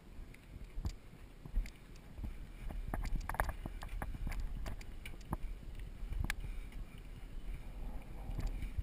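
Mountain bike riding down a dirt singletrack: a low rumble of the tyres on the dirt, with frequent quick clicks and knocks as the bike rattles over bumps.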